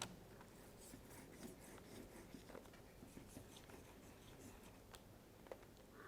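Near silence, with faint scattered light clicks and rustles of paper and craft materials being handled.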